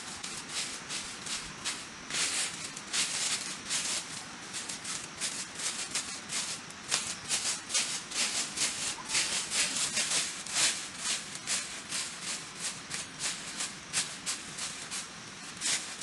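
Dry fallen leaves rustling and crackling as they are swept and scraped across the ground into a pile, in quick strokes two or three a second.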